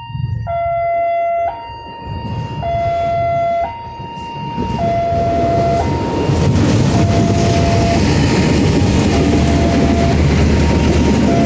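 Railway level-crossing alarm sounding two alternating tones, switching about once a second. A diesel locomotive hauling passenger coaches approaches and passes. From about six seconds in, the engine rumble and the noise of wheels on the rails grow loud and steady under the alarm.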